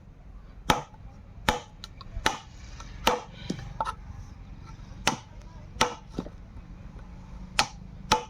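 Repeated sharp strikes on wood, a hand tool hitting a wooden workpiece, the heavy blows coming at a steady pace of a little more than one a second with a few lighter taps in between.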